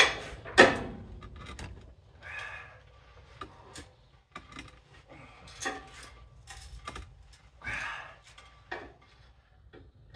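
Metal clanks and knocks from hand tools and steel parts being worked on a truck's rear axle and frame, as a stuck axle bracket is pried at: two loud clanks with a short ring in the first second, then scattered lighter knocks and a couple of brief scrapes.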